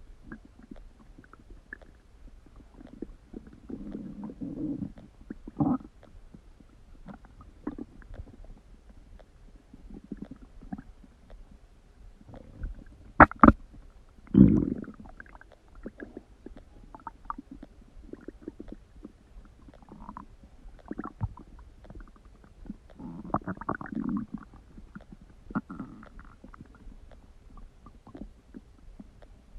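Human stomach rumbling and gurgling on and off (borborygmi, gas and fluid moving through the gut): low drawn-out rumbles and short gurgles, with the loudest, sharpest gurgles coming in a quick cluster about halfway through.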